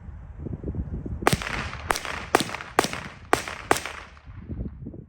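Six rapid shots from a .22 rimfire pistol fitted with a stabilising brace, each a sharp crack with a short echo, about half a second apart.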